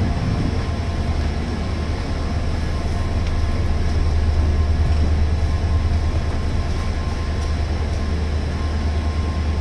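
Passenger express train running, a steady low rumble with rail noise over it.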